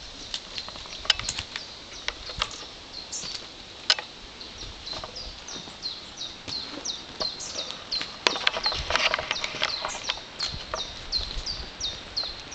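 A small songbird repeating a short, high, falling note over and over, about three times a second, from about five seconds in. Sharp clicks and scuffs close to the microphone are the loudest sounds.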